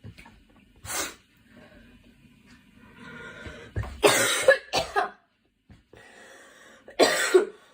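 A girl coughing: one short cough about a second in, then a harder fit of several coughs about four seconds in, and two more coughs near the end, with fainter breaths between them.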